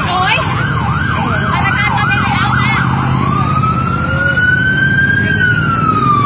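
Emergency vehicle siren in a fast yelp, rising and falling about three times a second, that switches about three seconds in to a slow wail rising and then falling away near the end. A steady low traffic hum runs underneath.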